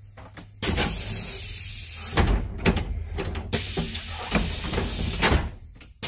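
School bus compressed-air system letting off two loud hisses, the first starting suddenly about half a second in and the second running from about three and a half seconds to near the end, with several sharp thumps between them, over the low steady hum of the idling bus.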